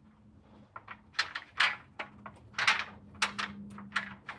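Retractable-screen side-track pieces being slid and fitted together by hand: a series of short scraping clicks and knocks.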